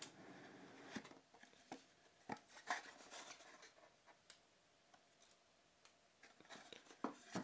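Faint taps, clicks and rubbing of fingers handling a cardboard box as its hinged lid is flipped open, busiest in the first half.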